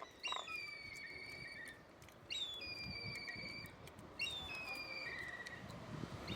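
A bird calling four times, about every two seconds. Each call is a high whistle that drops quickly at the start, then holds a slightly wavering note for about a second and a half.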